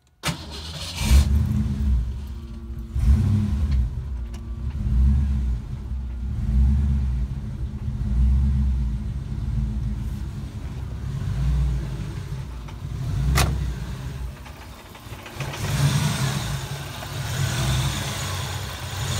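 Fox-body Mustang's 5.0-litre V8 starting about a second in after a sharp click, then idling unevenly, its sound swelling and sagging every couple of seconds. The rough idle goes with a fault in the idle air bypass valve circuit, which is getting no signal from the ECU. There is a single click near the end.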